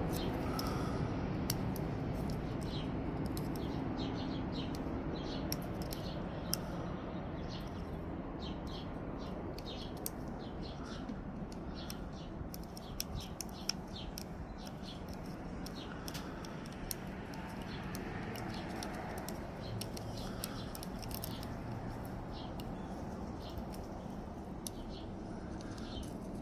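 Steady low background hum with many light, scattered clicks and ticks of small parts being handled during work on a hydraulic crimper.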